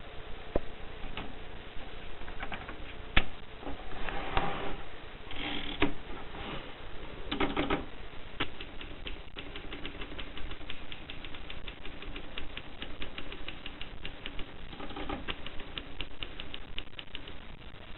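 Mercedes Prima typewriter being typed on: keys striking in scattered clicks, becoming a fast, even run of keystrokes from about halfway through. A few short bursts of noise come in between the keystrokes.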